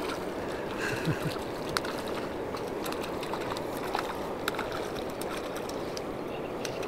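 Hooked crucian carp splashing and thrashing at the water's surface as it is played in on the line: a few short sharp splashes over a steady background hiss.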